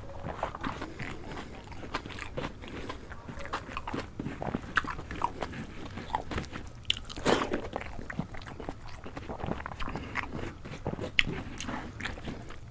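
Close-miked eating: chewing and small crunchy bites, mixed with the soft squish of fingers kneading cooked rice on a banana leaf. The sound is a string of irregular clicks and crackles, with the loudest bite about seven seconds in.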